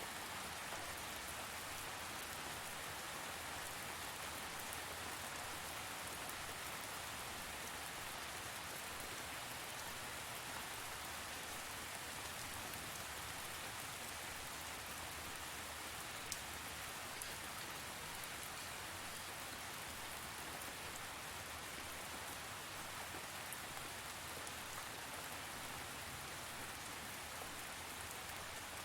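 Steady rain falling, an even hiss of drops on a surface with a few separate drips standing out, such as one about sixteen seconds in.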